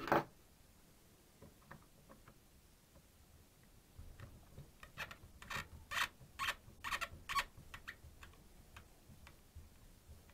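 A sharp click, then a run of about a dozen small clicks and ticks over a few seconds as a tiny screwdriver works the screws at the rear mount of a Tamron 18-270 zoom lens, with the low rumble of the lens being handled.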